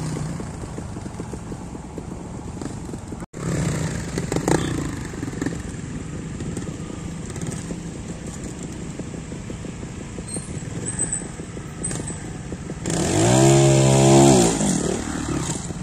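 Trial motorcycle engine running at low speed with throttle blips as the bike works over rock steps. The loudest moment, about thirteen seconds in, is a hard rev lasting about a second and a half whose pitch dips and then rises again.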